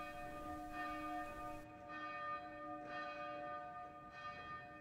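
Church bell ringing slowly, several steady tones ringing on and swelling again about once a second.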